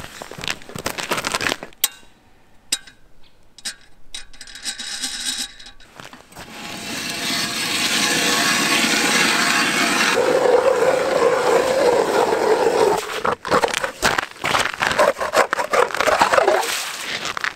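Footsteps on ice, then a hand ice auger drilling into pond ice: from about six seconds in the blades scrape and grind steadily through the ice, turning to a rougher, crackling crunch near the end as the cut ice chips churn up around the hole.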